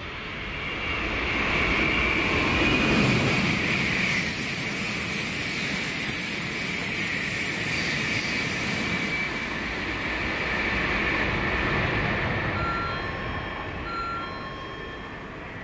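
N700-series Shinkansen bullet train running past a station platform: a rush of wheels and air that builds to a peak and then fades, with a high whine in the first few seconds.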